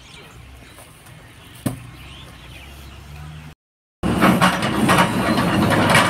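One sharp knock over a faint low hum, then, after a brief silence at about three and a half seconds, a much louder rough running noise from a JCB 4DX backhoe loader at work, with repeated knocks and clatter.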